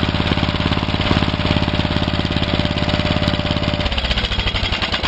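Snapper riding mower's small engine running at a fast, steady idle, which the owner believes is set a little too high, then shut off about four seconds in, its firing slowing as it coasts down.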